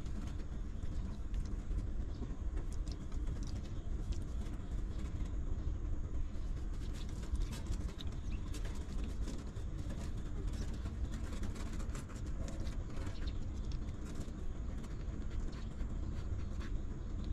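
Newborn puppies suckling at their mother, with scattered small wet clicks, over a steady low rumble.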